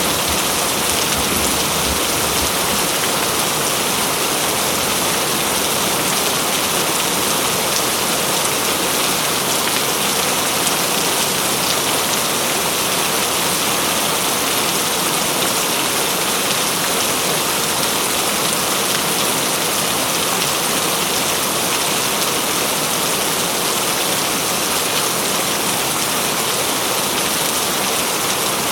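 Heavy rain falling steadily, a dense even hiss of drops with no distinct individual hits.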